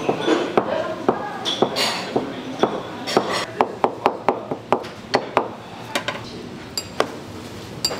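Irregular sharp taps and knocks of kitchen prep work, about two to three a second, over a low background murmur.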